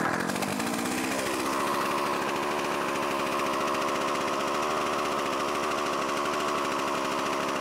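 Two-stroke chainsaw catching on a pull, its revs dropping within the first second or so and settling into a steady idle. This saw has been slow to restart, which the owner puts down to fuel draining from the line.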